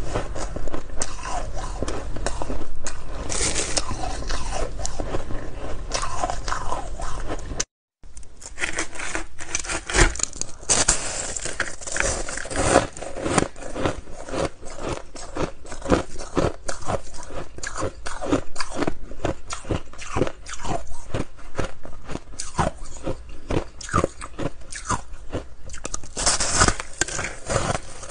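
Close-miked crunching of frosty flavoured ice being bitten and chewed, with crackles and scrapes of ice broken apart by hand. The sound cuts out completely for a moment about eight seconds in, then the dense crunching resumes.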